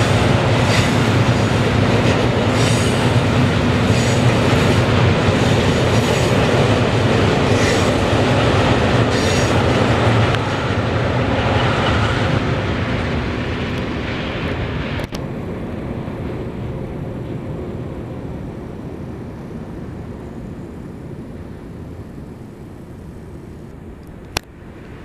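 Freight train passing: the wagons' wheels run over the rail joints in a regular clatter with some wheel squeal, over the low drone of two HŽ series 2062 diesel locomotives working hard uphill. From about ten seconds in the sound fades away steadily as the train moves off. There is one sharp click near the end.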